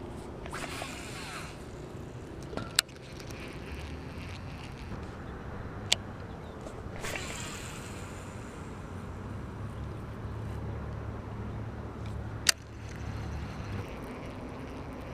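Casting and reeling with a baitcasting rod and reel: two brief swishes, about a second in and again about seven seconds in, and three sharp clicks, over a low steady rumble that grows in the second half.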